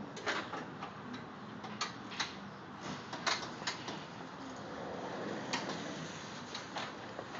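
A dozen or so light clicks and taps, irregularly spaced, over a steady low background noise.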